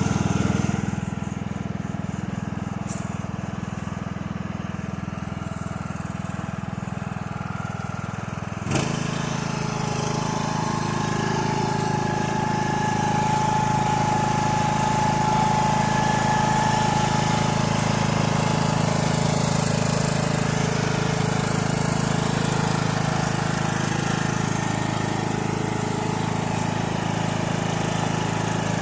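An engine runs steadily. About nine seconds in, the sound switches abruptly to a different steady engine sound: the Craftsman T140 riding mower's engine running.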